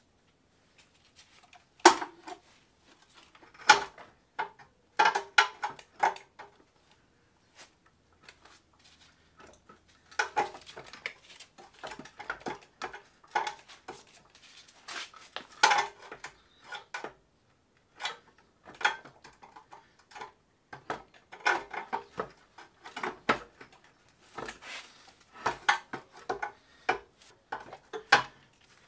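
Hand tools working bolts between a transaxle and engine block: irregular clusters of metallic clicks and clinks, with quicker runs of ticking at times, as a wrench and socket turn the fasteners.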